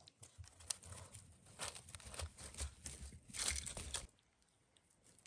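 Puppies' paws rustling and crunching over dry grass and dead leaves as they run close by, in irregular bursts that stop about four seconds in.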